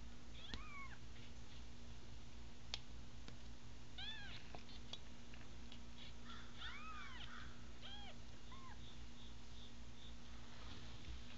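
Newborn American Bobtail kittens, eyes just opening, mewing: about six short, high mews scattered through, each rising and then falling in pitch, with a longer, lower one about seven seconds in. A faint steady low hum lies underneath.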